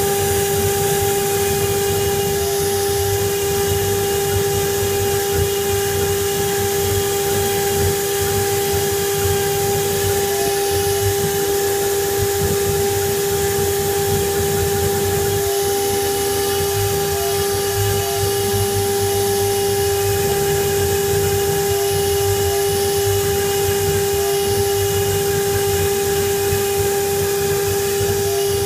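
Water-cooled spindle of a 1325 CNC router running at high speed as its bit carves a relief into a wood board: a steady high whine over a hiss.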